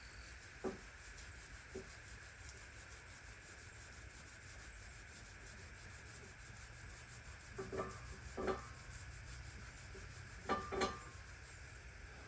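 Short scraping rubs of a hand tool on the washer's parts during the restoration work, over a faint steady hiss. There are two single strokes near the start, then after a long gap a cluster around two thirds of the way through and a quick pair near the end.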